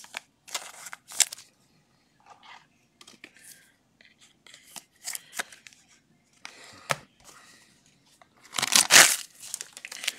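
Scattered rustles and light clicks of trading cards and a foil card-pack wrapper being handled, with a louder crinkle of the foil wrapper between about eight and a half and nine and a half seconds in.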